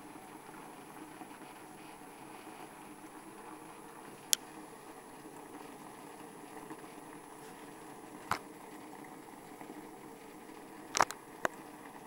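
Top-loading washing machine agitating its load, water churning and sloshing steadily in the tub, with a few sharp clicks about four, eight and eleven seconds in.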